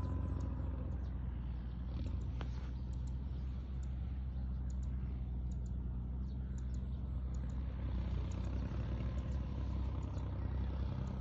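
A motor engine running steadily, a constant low drone with faint short high ticks over it.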